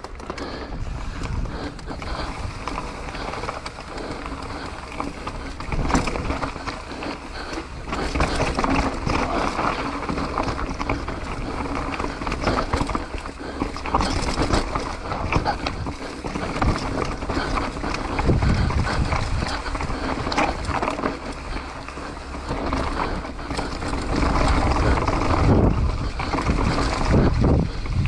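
Mountain bike descending a dirt trail: wind rumbling over the microphone, tyres rolling over dirt and rocks, and frequent rattles and knocks from the bike, surging louder several times.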